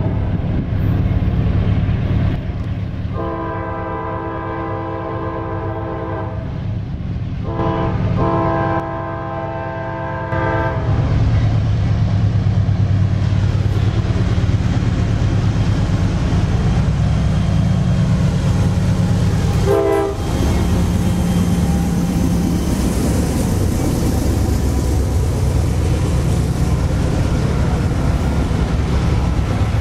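A diesel freight locomotive's air horn sounds at a grade crossing: a long blast, a short one and a final long one, ending about ten seconds in. Then the CSX locomotives' engines rumble loudly past, followed by the rolling noise of the freight cars.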